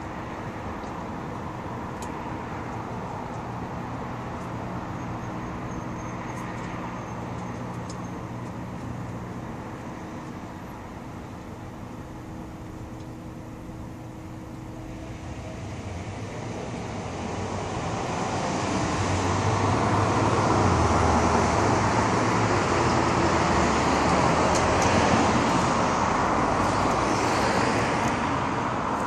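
Road traffic at an intersection: a steady engine idling hum, then vehicles pulling away and passing close. The noise swells a little past halfway, stays loud for several seconds, and eases off near the end.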